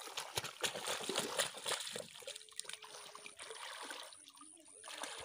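Shallow muddy water splashing and sloshing as men wade through it and work clods of mud by hand and with hoes. The splashing is busiest in the first two seconds, eases off, and picks up again near the end.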